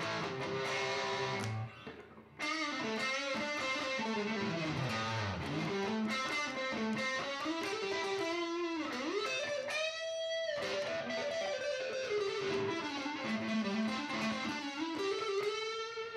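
Fender Stratocaster electric guitar played through a 1968 Fender Super Reverb tube amp with distortion: a single-note lead line with string bends and vibrato. There is a brief break about two seconds in, and a long sustained note with vibrato around ten seconds in.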